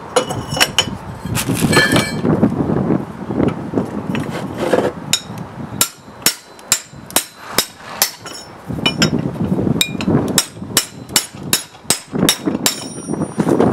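Repeated sharp metal knocks of a pipe being driven against a new driveshaft centre bearing to seat it on a Holden VE Commodore tailshaft. The blows are irregular at first, then settle into a steady run of about two a second in the second half.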